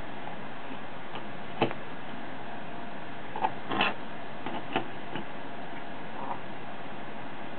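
Light clicks and taps of a circuit board being handled, turned over and set down on a wooden desk: one click about a second and a half in, then a cluster of taps a couple of seconds later, over a steady background hiss.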